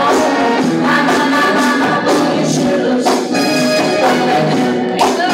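Funk music with a singer, played loud over a DJ's sound system.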